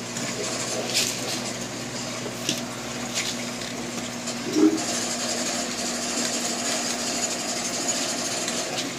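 Aquarium air pump and filter running: a steady electric hum with the hiss of bubbling water, a few faint clicks, and a short thump about four and a half seconds in.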